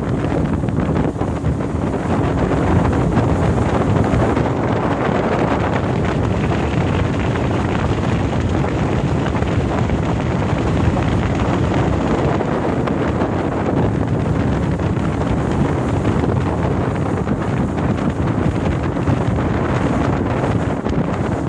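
Wind buffeting the microphone as a small aluminium fishing boat runs across a lake under power, with the steady hum of its outboard motor and water rushing along the hull underneath. The noise is loud and constant throughout.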